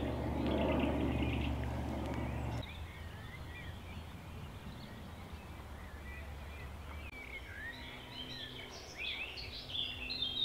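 Small birds chirping and singing on a quiet canal bank, the calls getting busier towards the end. For the first two or three seconds a soft rushing noise lies under them, then it stops abruptly.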